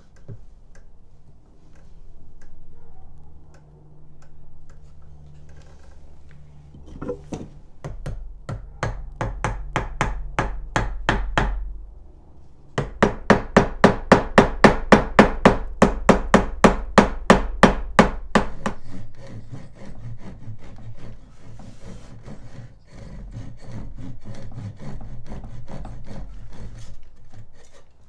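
Quick, rhythmic strokes of a hand tool on a wooden board, about four to five a second, in runs that are loudest in the middle and softer near the end.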